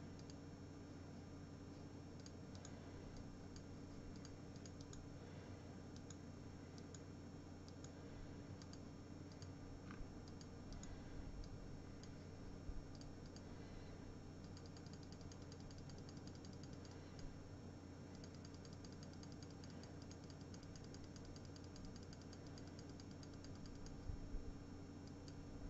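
Near silence: a faint steady electrical hum with a few soft scattered clicks.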